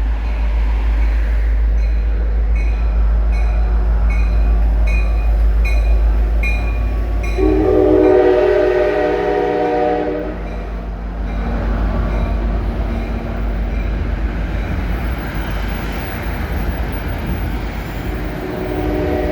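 Diesel commuter train moving slowly, its engine giving a steady deep rumble. A bell rings rapidly for several seconds, then the multi-note air horn sounds a long blast about eight seconds in, with a fainter horn sound a few seconds later and another blast starting near the end.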